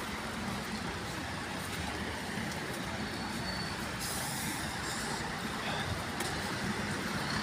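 Steady city road traffic noise, buses and cars passing.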